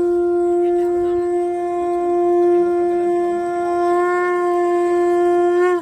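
Conch shell (shankh) blown in one long, steady, unwavering note, held for several seconds and cut off just before the end.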